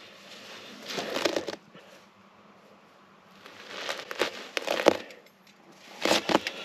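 Rustling and crinkling from a cloth rag and jacket sleeve rubbing close to the microphone, in three spells with quieter gaps, as the engine bay is reached into by hand.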